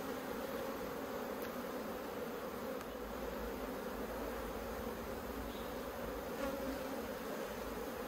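Steady hum of many honeybees buzzing over an open Langstroth hive as its frames are worked through. It is the sound of a strong, populous colony.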